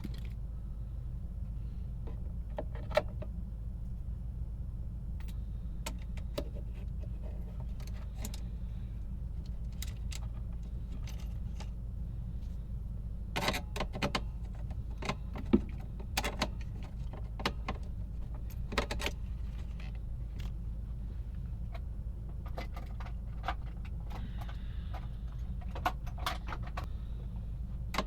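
Irregular small metallic clicks and clinks of tools and parts being handled on a workbench, thickest about halfway through, over a steady low hum.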